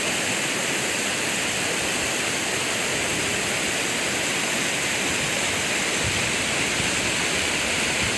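Steady rushing of a fast, muddy flood torrent churning through a volcanic riverbed: a rain-fed lahar flood, still swelling.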